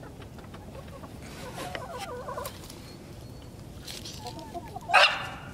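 Hens clucking: a run of short low clucks between one and two and a half seconds in, a fainter one later, then a loud sharp call near the end.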